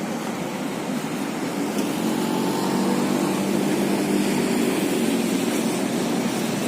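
A low engine drone that comes up about two seconds in and eases off near the end, over a steady rushing background.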